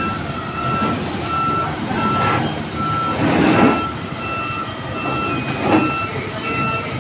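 A heavy vehicle's reversing alarm beeps steadily, about one beep every three-quarters of a second, over the rumble of its running engine while it backs up. Two louder noisy surges come about halfway through and again near the end.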